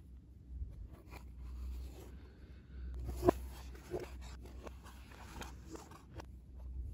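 Cardboard packaging of an Apple Watch Series 6 being handled in cotton-gloved hands: paper and card rubbing and sliding against each other, with scattered small clicks and one sharp tap about three seconds in, over a low steady hum.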